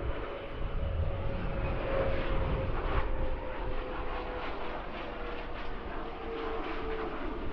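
Twin rear-mounted turbofan engines of a Bombardier CRJ regional jet at low landing thrust as it flares and touches down: a steady whine that slowly falls in pitch, over a low rumble.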